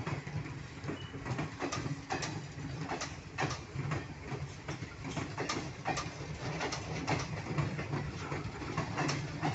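Passenger train coaches rolling past close by: a steady low rumble with sharp wheel clacks over the rail joints, about two a second.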